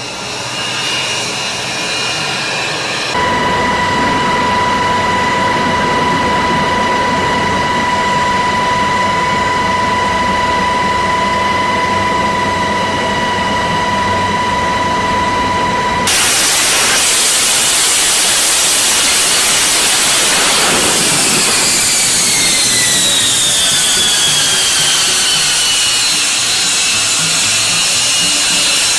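Jet engine noise from an F-35B's F135 turbofan. A steady high whine holds for the first half. About halfway through, a sudden cut brings louder rushing jet noise, and in the last seconds a whine in it falls in pitch.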